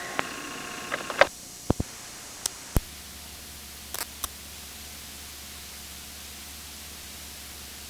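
Camcorder handling noise: about nine sharp clicks and knocks in the first four seconds, then a steady hiss with a faint low hum.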